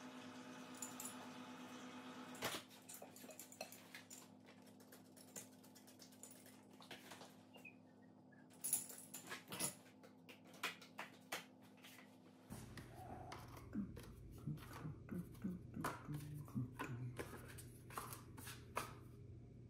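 Faint scattered clicks, taps and knocks of plaster slip-casting molds being handled, over a low steady hum that drops lower about two-thirds of the way through. In the first couple of seconds, a soft pour of liquid clay slip through a mesh strainer.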